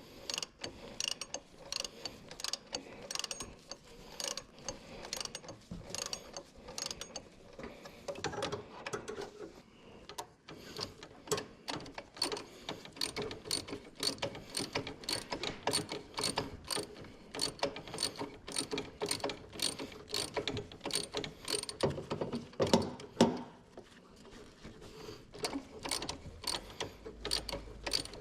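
Socket ratchet wrench being worked, its pawl clicking in a steady rhythm of about two to three clicks a second, with a brief pause partway and a louder clunk about three-quarters of the way in.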